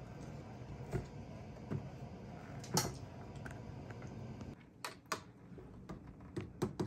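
Sharp plastic clicks and snaps as the third brake light housing of a 2010 Honda Pilot is pried out of its clips with a plastic trim tool, the loudest snap about three seconds in and a quick run of clicks near the end. A steady low hum underneath stops about halfway through.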